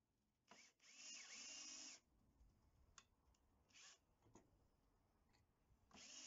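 Cordless drill boring holes in a small steel plate. The motor runs in a burst of about a second and a half with its whine rising and dipping under load, then gives a few short blips, and starts again for a steady run near the end.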